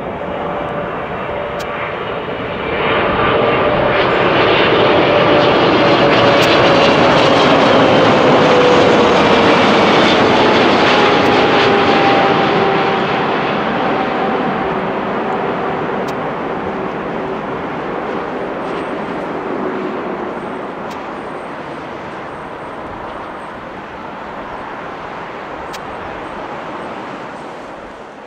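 Airliner passing close by, its engine roar swelling to a peak and then slowly fading, with a whining engine tone that drops in pitch as it goes past.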